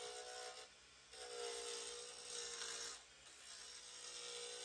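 Round carbide turning tool scraping a spinning Jatoba blank on a wood lathe, in three passes with short breaks, over a steady hum.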